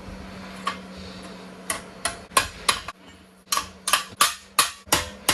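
Hand hammer striking steel, about a dozen sharp ringing blows, spaced out at first and then coming quickly after a short pause.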